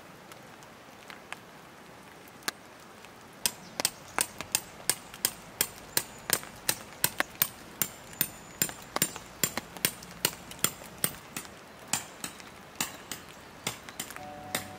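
Tent peg being driven into the ground with a hammer: a steady run of sharp strikes, two to three a second, starting about three and a half seconds in.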